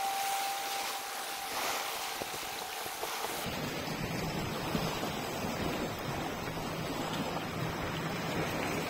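Sea water surging and washing against shoreline rocks, with wind buffeting the microphone. A faint steady whine runs through the first three seconds.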